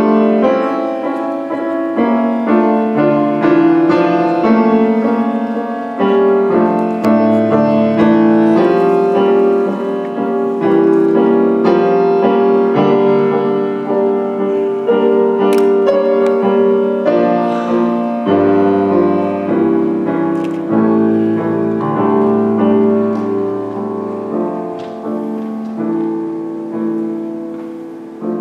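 Grand piano played solo: a melody over long held bass notes, steady in loudness and growing quieter near the end.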